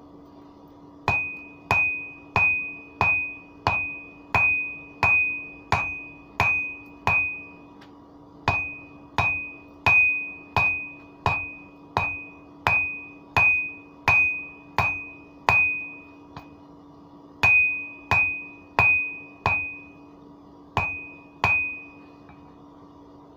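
Blacksmith's hammer striking hot steel on an anvil while forging a concrete drill bit; each blow rings with a clear high tone. The blows come about one and a half a second in runs of about ten, with short pauses between runs, over a steady low hum.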